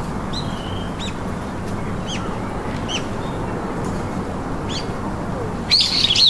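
Short high chirps that rise and fall in pitch, repeating about once or twice a second over a steady background hiss, with a louder cluster of overlapping chirps near the end.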